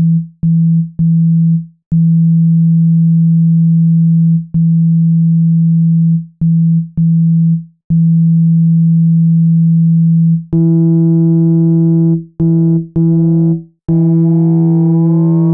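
Synthesized 165 Hz water-ejection tone for a phone speaker, pulsing on and off in an uneven rhythm to shake water out of the speaker. About two-thirds of the way in it turns brighter, and near the end rising sweeping tones join it.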